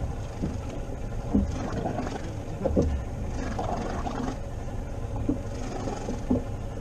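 Steady wind and sea noise around a rigid inflatable boat drifting at sea, with a few short, dull knocks on the hull or deck.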